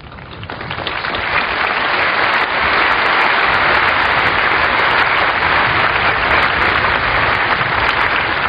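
A very large outdoor crowd applauding, swelling over the first couple of seconds and then holding steady and loud.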